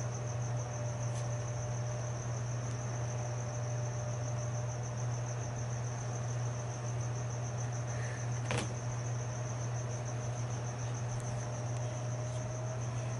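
A cricket trilling steadily, a fast even pulsing high chirp, over a steady low hum. One sharp click about eight and a half seconds in.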